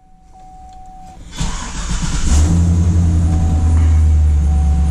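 6.0-liter LS V8 of a 2500HD pickup being cranked about a second and a half in, catching and settling into a steady idle. It has low oil pressure but no audible knock.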